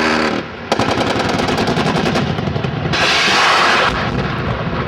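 Attack helicopter's automatic cannon firing rapid bursts, shot after shot in quick succession, starting just under a second in, with a louder rushing noise about three seconds in.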